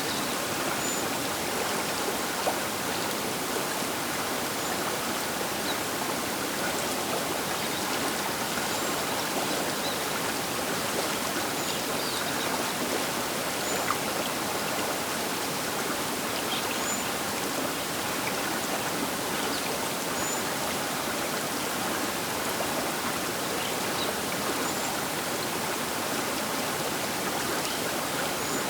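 The Baker River flowing: a steady, even rush of moving water with no change in strength.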